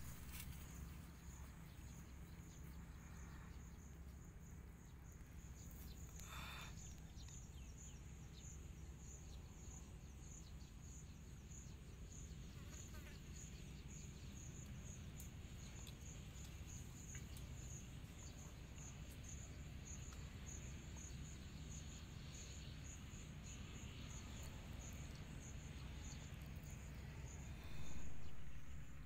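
An insect chirping in a steady high-pitched pulsing series, about two pulses a second, over a low steady rumble; a louder rush of noise near the end.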